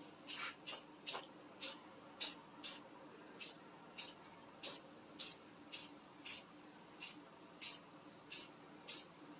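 Aerosol spray can of Krylon Rust Tough high-gloss paint hissing in short bursts, about two a second, laying on a light dusting coat.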